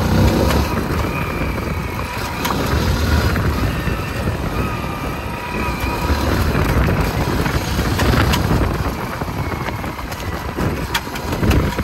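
A Hero Splendor motorcycle's small single-cylinder engine running while the bike is ridden, with wind buffeting the microphone. A few sharp knocks come through, the rattling the owner blames on having the bike raised.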